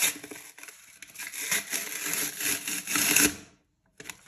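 Paper crinkling and rustling as a handmade envelope of squared notebook paper is unfolded and pulled open, a dense run of crackles that cuts off suddenly near the end.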